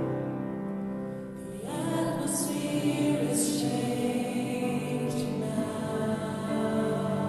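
Gospel praise song played by a worship band on piano and guitars. A woman's lead voice comes in just under two seconds in, singing the melody.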